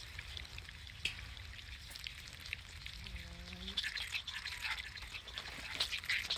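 Outdoor ambience: a steady low rumble with many quick crackling ticks that grow busier in the second half, and one brief low call about three seconds in.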